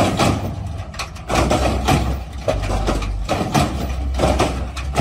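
Lowrider hydraulic suspension at work as the cars are lifted onto three wheels and raised onto the rear bumper. A low steady drone cuts out briefly about a second in, and a sharp clank comes every half second to a second.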